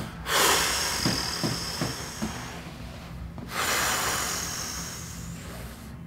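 A man breathing audibly, two long breaths of about two and a half seconds each with a short pause between them.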